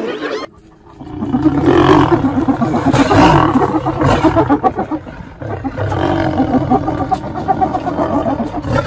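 Lions growling and snarling at hyenas, with hyena calls mixed in. The sound starts about a second in, after a brief hush, and runs on dense and rough.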